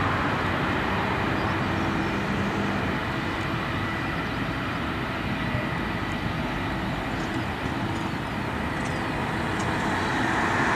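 Steady roar of jet airliner engines with a faint whine, easing a little midway and building again near the end.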